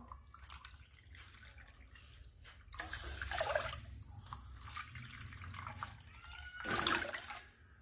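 Water poured from a plastic measuring cup into a metal kadhai of sugar, splashing and trickling onto the sugar to start a sugar syrup. It is louder about three seconds in and again near the end.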